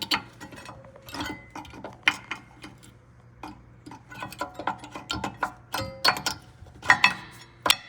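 Steel-backed brake pad and its spring clip clinking and clicking against the caliper bracket as the pad is worked into place: a string of sharp metallic taps and knocks, some ringing briefly, the loudest a little before the end.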